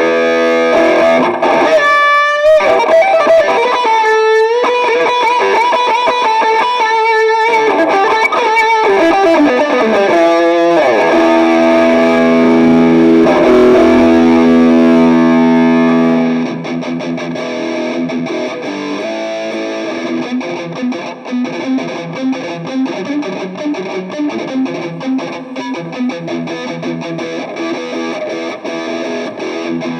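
Distorted electric guitar played through an Arcano Metal End distortion pedal into an amp: bent and sliding lead notes ending in a long falling slide, then held chords. About halfway through it drops quieter into fast picked riffing.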